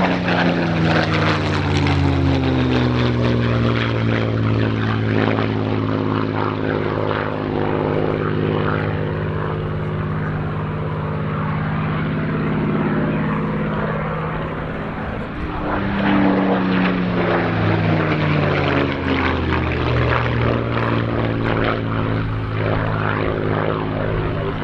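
Supermarine Spitfire's V12 piston engine running at display power as the fighter flies past overhead. The engine note drops in pitch as it passes near the start, holds steady, then drops again on a second pass about 16 seconds in.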